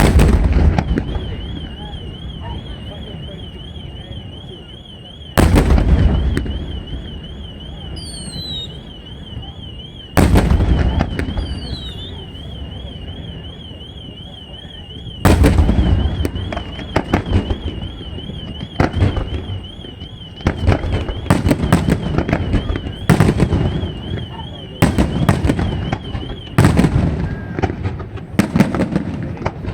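Fireworks display: four heavy shell bursts, each a deep bang, about five seconds apart, then a rapid string of bangs and crackles from about eighteen seconds in. A warbling alarm tone sounds under most of it, with a couple of brief falling whistles early on.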